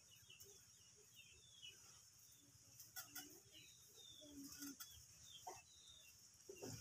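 Near silence with faint bird chirps, short falling calls repeated many times, over a steady faint high hiss and a few soft clicks.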